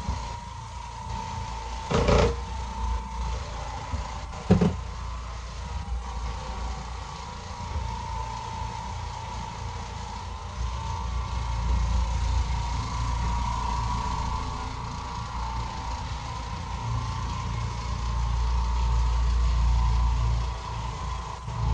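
Oreck Orbiter orbital floor machine running as it scrubs carpet: a steady motor whine over a low rumble, growing louder in the second half. Two sharp knocks about two and four and a half seconds in.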